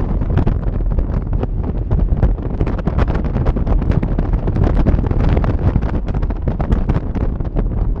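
Wind buffeting the microphone of an open-top Mazda MX-5 driven at speed, over a low rumble from the car and road. The buffeting is loud and steady, with frequent crackles.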